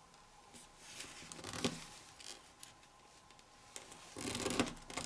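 A sheet of printer paper rustling softly as fingers fold two flaps and press them flat, with a few short crisp rustles and a louder stretch of crinkling near the end.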